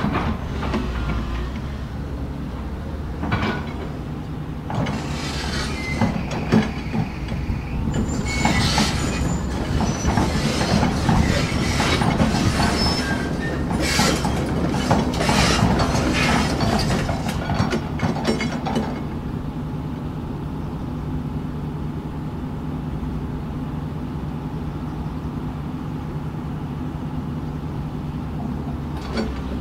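Tracked hydraulic excavator's diesel engine running, with a burst of clanking and squeaking from its steel tracks as it drives off, from about 3 to 19 seconds in. After that the engine drone carries on alone.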